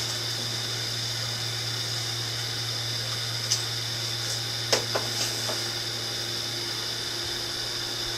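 Steady electrical hum with a high whine from a running appliance motor, with a few light clicks of plastic plant containers being handled around the middle.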